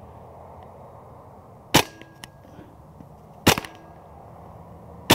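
Three single shots from a Hatsan Blitz .30 caliber pre-charged pneumatic air rifle, about a second and a half apart, each a sharp crack. Each shot is followed within half a second by a fainter tick of the pellet striking the soda-can targets downrange.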